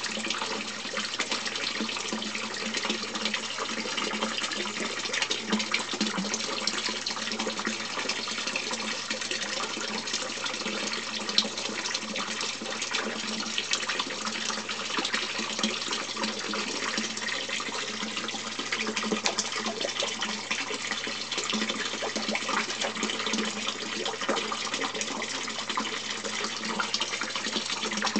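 Water splashing steadily into an indoor koi tank, a constant stream of fine splashes with a low steady hum under it.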